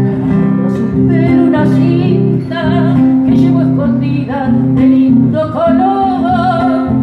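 A woman singing to an acoustic guitar accompaniment, the guitar strummed and plucked steadily under her melody.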